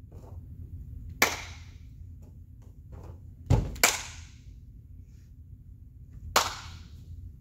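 Hands and feet slapping a vinyl-covered gymnastics floor mat during a cartwheel and a drop into a split. There is a sharp slap about a second in, a dull thud followed closely by a second slap about three and a half seconds in, and another sharp slap near the end, each ringing briefly.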